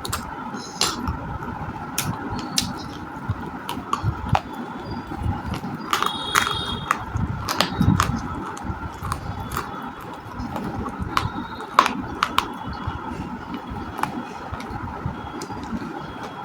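Close-miked crunching of baked clay being bitten and chewed: irregular sharp cracks and crunches, a dense run around six to eight seconds in and one loud crack near twelve seconds, over a steady background hum.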